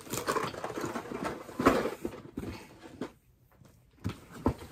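Items being handled and packed into a plastic storage bin: irregular rustling and bumping, a short pause, then a few sharp knocks near the end.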